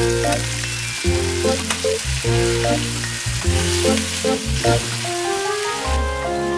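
Clams and chopped tomatoes sizzling in a frying pan while a spatula stirs them, over background music with a melody and bass line. The sizzling fades near the end.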